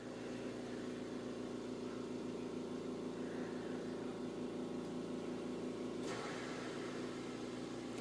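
A steady low mechanical hum with a fast, even pulse, as from a small motor or appliance running, with a brief noise about six seconds in.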